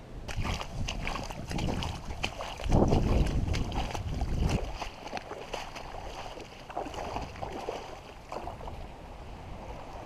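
Footsteps splashing through shallow water and wet sand, a run of irregular splashes and clicks, with wind buffeting the microphone in a loud rumble for about two seconds about three seconds in.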